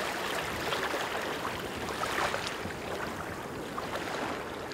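Small waves washing and lapping onto a sandy beach, a steady wash of water with light fizzing and crackle.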